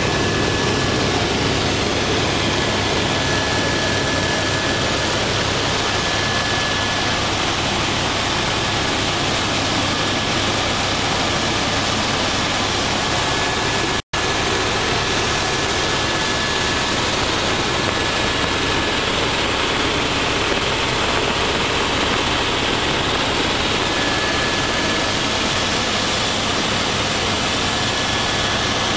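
Helicopter in flight heard from inside the cabin: a steady, dense engine and rotor noise with a thin, steady high whine over it. The sound cuts out for an instant about halfway through.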